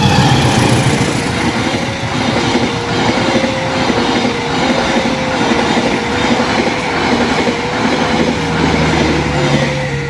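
Diesel-hauled passenger train passing a level crossing at speed, its wheels clattering over the rails in a dense rush of noise. Through it the crossing's electronic alarm keeps sounding, stepping unevenly between two close pitches; the uploader calls this an alarm error.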